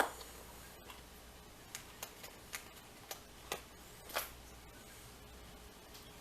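Scattered small clicks and taps from a padlock and small metal tools being handled: a sharp click at the start, then about eight light, separate clicks over the next four seconds.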